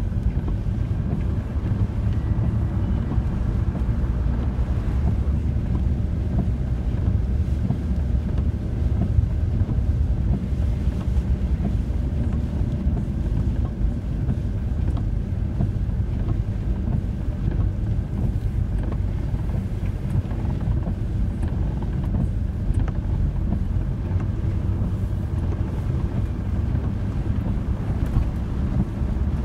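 VW T4 campervan driving on a wet road, heard from inside the cab: a steady low rumble of engine and tyres on wet tarmac.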